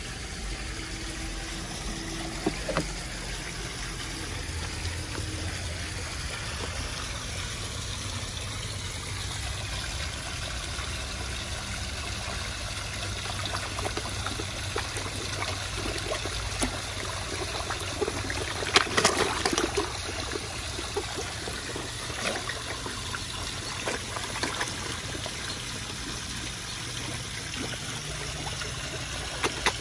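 Pond water trickling steadily, with splashes of koi taking food at the surface, busiest about two-thirds of the way in.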